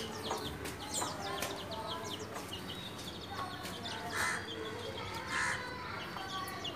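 Pet birds chirping constantly in quick, high, short notes, with two louder, fuller calls about four and five and a half seconds in.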